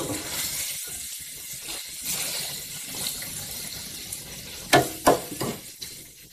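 Sliced bitter melon sizzling steadily in a stainless steel pan. About three-quarters through, a metal spoon knocks and scrapes against the pan a few times as the vegetables are stirred.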